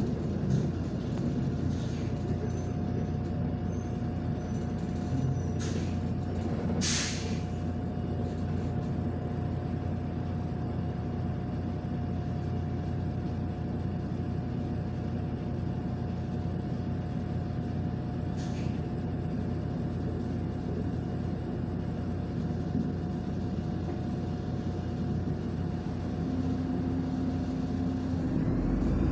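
Steady engine and road drone of a MAZ-105 articulated city bus under way, heard from inside, with a steady high whine over it. A short loud hiss of compressed air about seven seconds in, with fainter puffs of air near six and eighteen seconds. The whine drops out shortly before the end.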